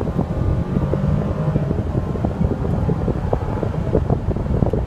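Cabin noise inside a 2014 Mercedes-Benz SL550 on the move: a steady low rumble of engine and road, with a crackle of wind noise on the microphone.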